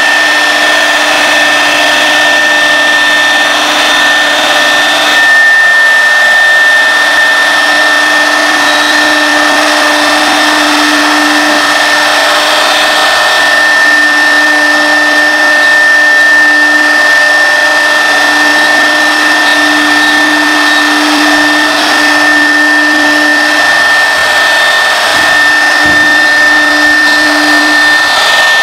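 CNC router spindle running with a steady high whine while its bit cuts a wood sheet, over a constant rush of cutting noise. A lower tone comes and goes throughout.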